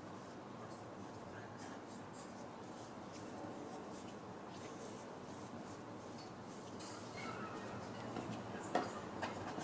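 Hands pinching and rolling a portion of soft bread dough into a ball on a floured wooden cutting board: faint rubbing and friction sounds, with a sharper soft knock near the end.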